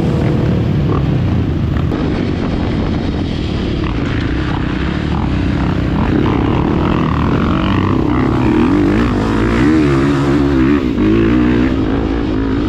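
Trail motorcycle engine running while riding, its pitch rising and falling with the throttle, wavering most in the second half.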